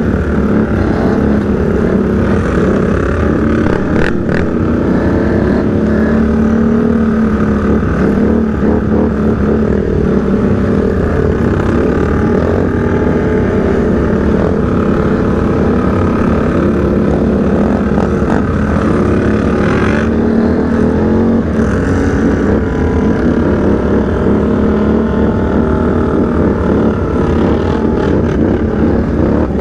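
Can-Am Outlander 850 XMR ATV's V-twin engine running hard through the race, its pitch rising and falling as the throttle is worked.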